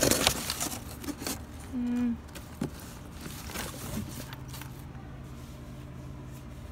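Cardboard boxes and plastic bags being handled and shifted by hand: rustling and scraping of cardboard and plastic, loudest at the start, with scattered small knocks.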